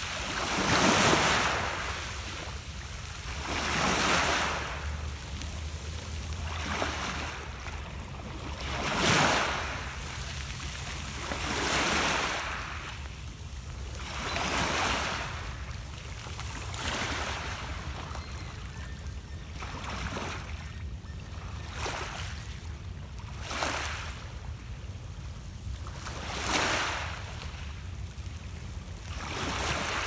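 Small lake waves breaking and washing up a pebble beach, a rush of water every two to three seconds, over a steady low rumble.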